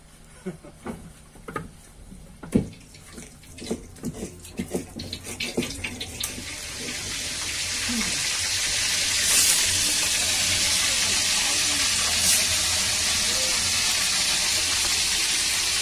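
Irregular knocks and thuds of husked coconuts being handled for the first few seconds. Then a steady hiss swells in about six seconds in and holds, with brief louder surges near the middle and near the end.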